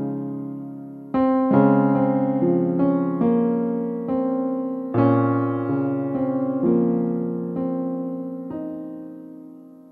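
Solo piano playing a slow study: notes and chords struck about once a second, each left to ring over held bass notes. Near the end the last chord rings out and fades away.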